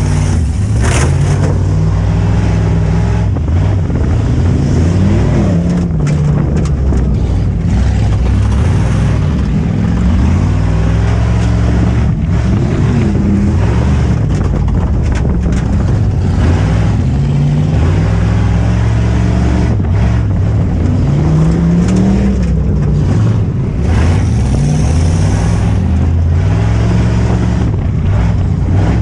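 V8 engine of a 4x4 autocross truck heard from inside the cab, revving up and falling back over and over as it is driven hard around a dirt track, with many short knocks and rattles.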